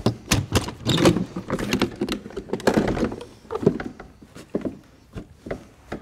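Hard saddlebag on a Harley-Davidson Road King being handled into place on its mounts and its lid opened: a run of knocks, clunks and rattles, busy for about the first four seconds, then a few scattered clicks.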